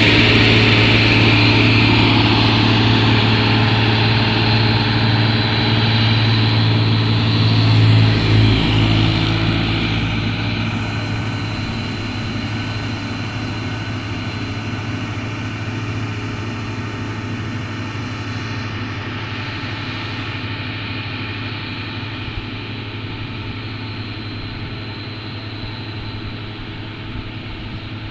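Heavy truck's diesel engine running steadily, slowly fading as the truck moves away.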